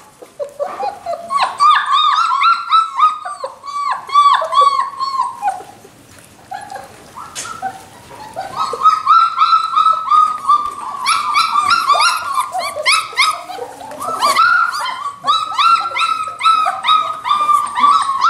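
Three-week-old puppies squealing and whimpering: a rapid string of short, high, rise-and-fall cries, several a second. The cries die down about six seconds in and start up again a few seconds later.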